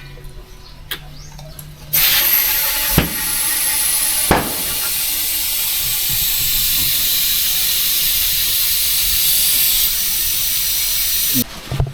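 Compressed air from a shop compressor line hissing loudly and steadily, switching on abruptly about two seconds in and cutting off near the end. Two sharp knocks come in its first few seconds.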